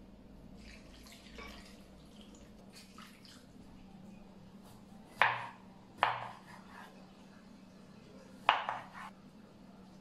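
Water poured faintly from a mug into bowls of sliced onion, then a kitchen knife cutting a lemon knocks sharply against a wooden cutting board three times, about five, six and eight and a half seconds in.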